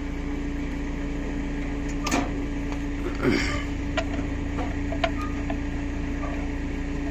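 A steady mechanical hum, with a few light clicks and taps as a wrench is set on the engine oil sump's drain plug.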